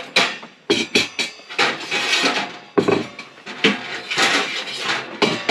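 Sheet-metal stovepipe sections sliding out of a small tent wood stove and clanking onto a wooden floor: several sharp metallic knocks with scraping and rattling in between.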